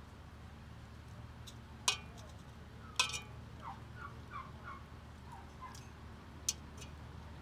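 Metal tongs clinking against a metal cooking pot: three sharp clinks, about two seconds in, three seconds in and near the end. Between the second and third clink, a farmyard fowl calls a quick series of short notes in the background.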